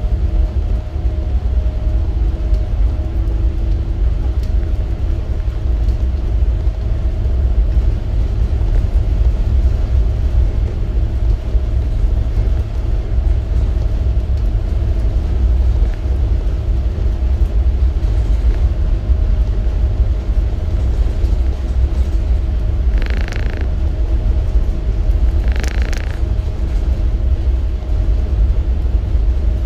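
Towboat's diesel engines running with a steady low drone and a steady hum over it, while pushing a tow of barges. Near the end, two short hissing sounds come a few seconds apart.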